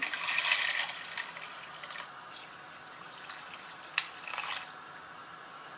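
Liquid poured from a jug in a steady stream into a pot of dry pasta, splashing loudest in the first second and then running on more quietly as the pot fills. A single sharp click about four seconds in.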